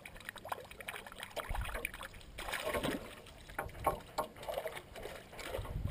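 Irregular light splashes and knocks of water and tackle around a small aluminum fishing boat while a hooked fish is reeled in.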